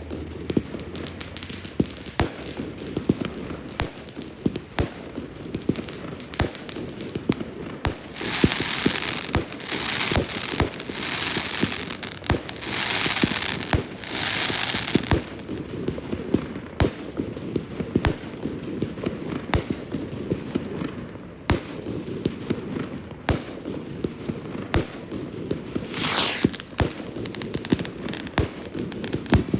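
Fireworks going off: a dense run of bangs and crackles, with two long spells of hissing about a third of the way in and near the middle. Near the end a whistle falls in pitch.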